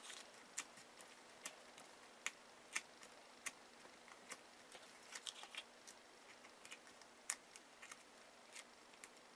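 Faint, irregular clicks and light taps, roughly two a second, of small foam adhesive pads being peeled off their backing sheet and pressed onto a card panel.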